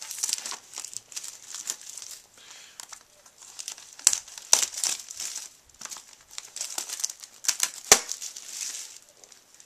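Clear plastic shrink-wrap crinkling in irregular bursts as it is pulled and torn off a sealed trading-card booster box, with a sharp snap of the plastic about eight seconds in.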